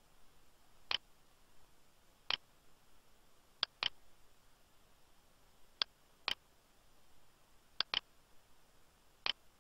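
Computer mouse buttons clicking: about nine short, sharp clicks at uneven intervals, including two quick pairs like double-clicks.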